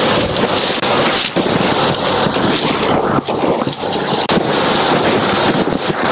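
Water falling and splashing down a partly frozen waterfall, a steady loud rushing.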